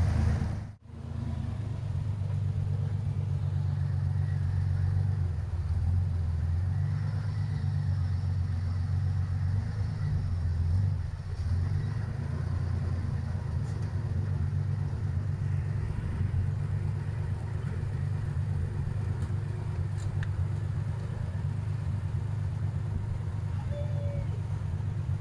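Toyota Land Cruiser FJ40's engine running at low revs, a steady low drone that cuts out for a moment about a second in.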